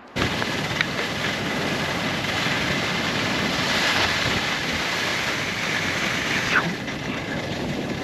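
The steady rush of skiing downhill: skis hissing and scraping over firm groomed snow, mixed with wind over the action camera's microphone.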